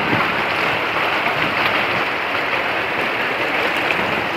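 Shallow river water rushing over stones, a steady rush.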